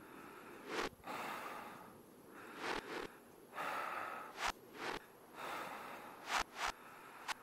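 Sampled breath-like hissing swells, each followed by one or two short sharp clicks, repeating every second or two in a loose rhythm, played from a Korg Volca Sample digital sample sequencer.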